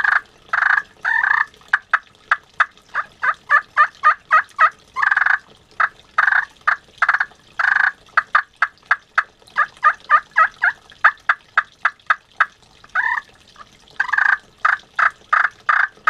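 Enticer Rolling Thunder Corian pot turkey call played with a striker, imitating a hen turkey: a long run of short, sharp notes several a second, broken by longer purring notes.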